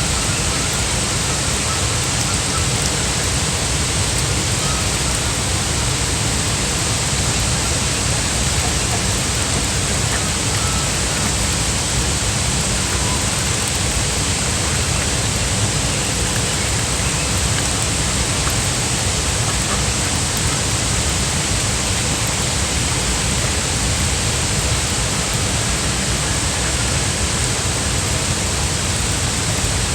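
Steady, unbroken water noise: an even hiss with no separate splashes or knocks.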